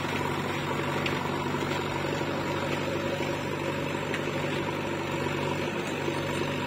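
Eicher tractor's diesel engine running steadily under load as it pulls a trolley full of soil, a constant low engine drone.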